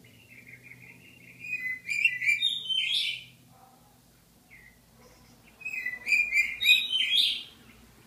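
Budgerigar warbling in two phrases, each building from soft chatter to a burst of loud, rapid chirps; the first fills the opening three seconds, the second comes about three-quarters of the way through.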